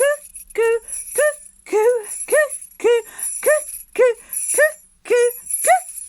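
A woman's voice calling "cuckoo" over and over, the clock's strikes counted out, about one call every 0.6 seconds. Jingle bells are shaken all the while.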